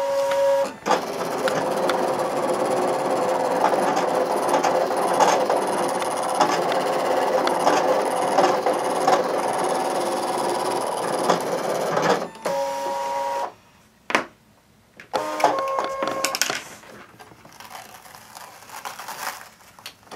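Brother ScanNCut digital cutter running a cut: its motors whir with rapid clicking as the blade carriage and mat move for about twelve seconds. This is followed by shorter steady motor tones, a brief near-silent pause, and quieter clicks near the end.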